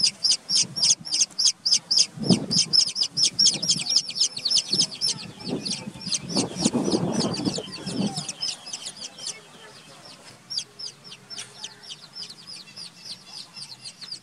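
Baby chicks peeping loudly and rapidly, about five high-pitched peeps a second, thinning out after about nine seconds. A couple of brief low scuffling noises come in between the peeps.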